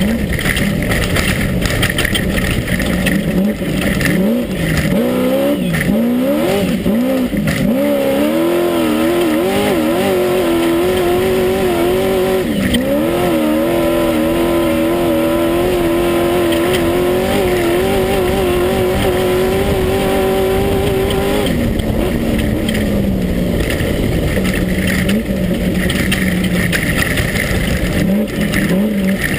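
Class 1 unlimited off-road buggy's engine heard from inside the car at race pace over a steady rush of noise. The revs rise and fall for the first several seconds, then hold high and steady for about thirteen seconds with one brief dip, and drop back about two-thirds of the way through before rising and falling again.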